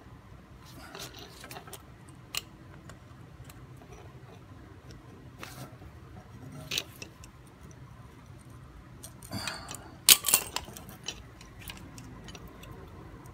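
Scattered metallic clicks and clinks of hand tools (pliers, then a handled driver) working a fitting on a clutch master cylinder, with a short cluster of clicks and one sharp, loud clank about ten seconds in.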